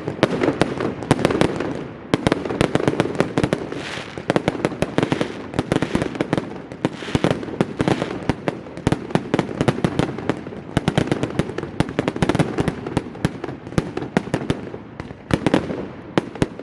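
Fireworks going off in a dense barrage: rapid, irregular sharp cracks and bangs over a continuous rumble of explosions.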